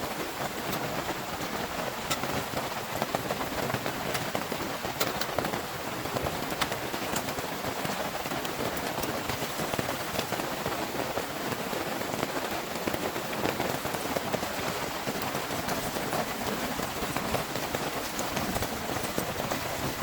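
Heavy rain falling steadily: a dense, even hiss of rain with many sharp individual drop hits close by.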